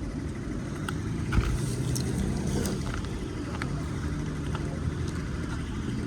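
Car engines running in slow or stopped road traffic, a steady low rumble, with scattered clicks and knocks and one louder thump about a second and a half in.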